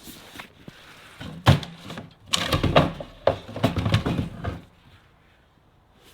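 A run of sharp knocks and clattering thumps, the loudest single strike about a second and a half in, followed by a busy stretch of irregular clatter that stops at about four and a half seconds.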